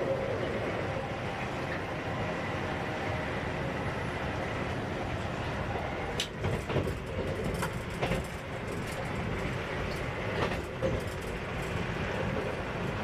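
Electric passenger train running on the track: a steady rumble, with a few sharp clicks and knocks from the wheels in the middle.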